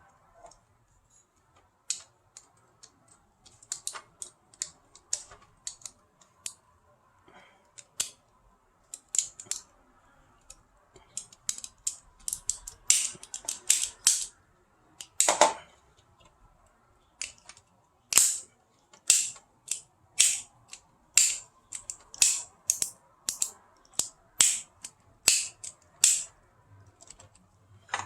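Sharp clicks and snaps, scattered at first, then coming about once a second through the second half, with one heavier knock partway through, from the plastic parts of a tower fan being handled and fitted together.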